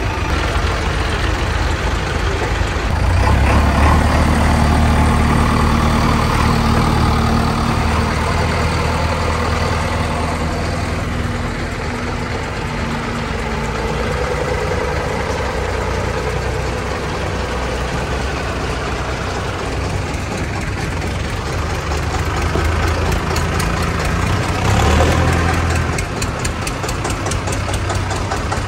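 Diesel engines of heavy farm machinery running and idling, a JCB 3DX backhoe loader and then a Mahindra Arjun Novo 605 tractor, with a steady low engine note. A short surge of louder engine noise comes about 25 seconds in.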